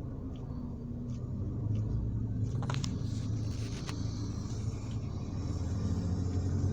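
Car running with a steady low rumble, and a few short clicks or rattles about three seconds in.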